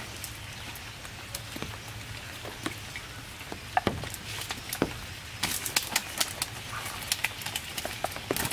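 Rustling and sharp slaps of a large fish being pulled free of a nylon cast net on a plastic tarp, growing busier about halfway through, over a steady low hum.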